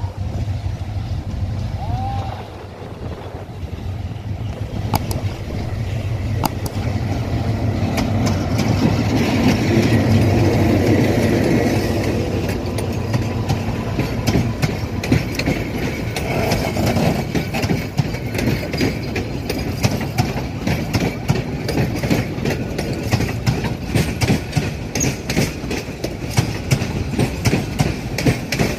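Diesel-hauled passenger train passing: a low engine rumble builds to its loudest about ten seconds in, then the carriages' wheels clatter rapidly over the rail joints.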